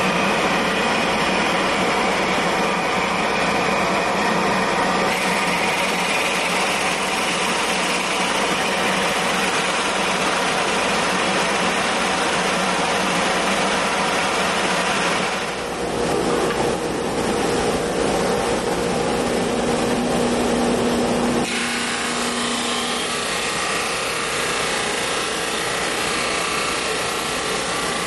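Drill press running a 1½-inch hole saw into a walnut board, cutting rings for checker pieces, over the steady rush of a dust collector. About two-thirds of the way through the sound changes abruptly to another steady machine run, a 16-32 drum sander.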